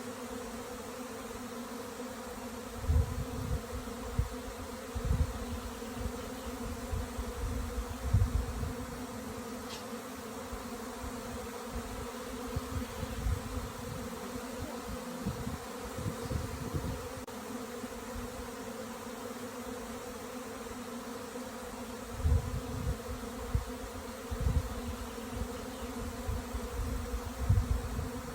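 Honeybees buzzing in a steady, even drone. Irregular low rumbling bumps come and go underneath it.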